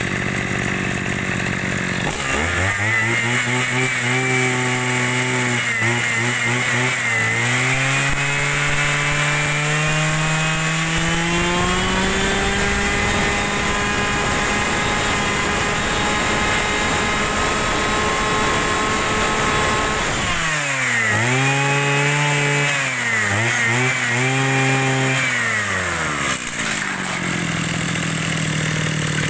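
Small two-stroke brush cutter engine running. It is brought up from idle in steps to high speed and held there, then dropped back suddenly about two-thirds of the way through. It is revved in several quick blips and settles back to idle near the end.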